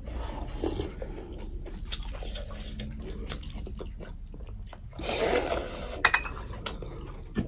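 Eating sounds of two people eating rice and fried chicken by hand: chewing and smacking, with many small clicks from fingers working food on the plates and light clinks of dishes, and a brief louder slurp-like noise about five seconds in.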